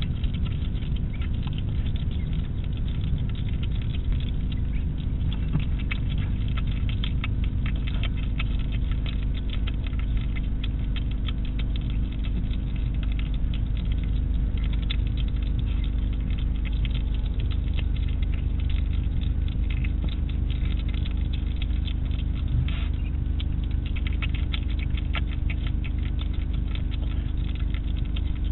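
European hedgehog eating from a dish: a rapid, continuous run of clicking chews and smacks, over a steady low hum.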